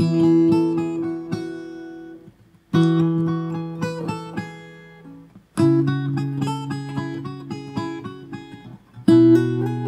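Acoustic guitar played alone: a chord struck about every three seconds and left to ring and fade, with single notes picked over it.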